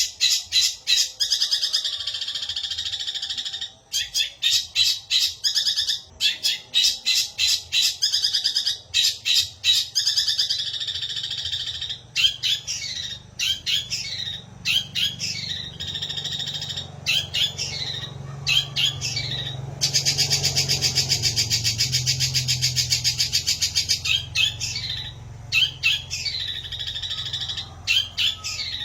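Long-tailed shrike singing a loud, varied song of rapid repeated chirps, quick downward-sweeping notes and long rattling trills, mixing in imitations of house sparrow chirps.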